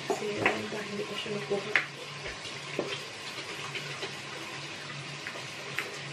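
Water running from a bathroom tap into the sink, with a few knocks and clicks in the first couple of seconds.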